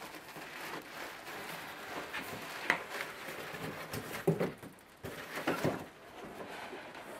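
Cardboard box and plastic wrapping being handled during unpacking: irregular rustling and crinkling, with a few sharper crackles and knocks spaced through it.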